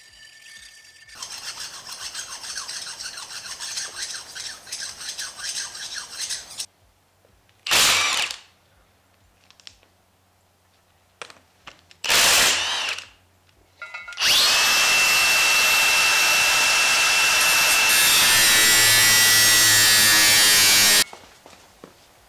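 A hand file rasping on the new ring gear to clear burrs. Then a cordless impact wrench: two short bursts, then one long run of about seven seconds, the loudest part, as it drives the ring gear bolts to seat the new ring gear onto the differential carrier.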